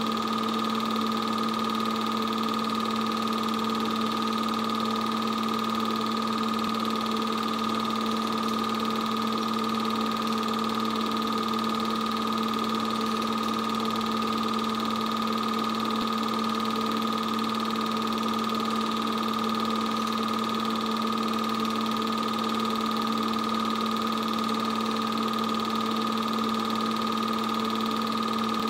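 8mm film projector running: a steady motor hum and whir with an unchanging pitch over a hiss.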